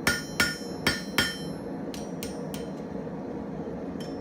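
Blacksmith's hammer striking a small iron heart on an anvil: four loud, ringing blows about a third of a second apart, then a few lighter taps.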